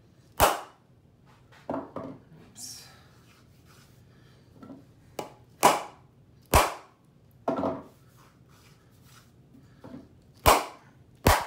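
Hammer taps on a wooden body plane, about eight sharp knocks in ones and pairs with pauses between. Each tap on the plane body backs the iron out to make the cut shallower.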